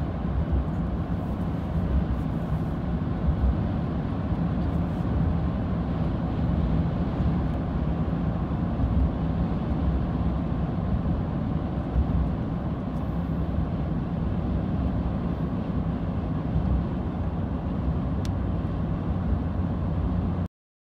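Car driving at highway speed, heard from inside the cabin: a steady low rumble of road and engine noise that cuts off suddenly near the end.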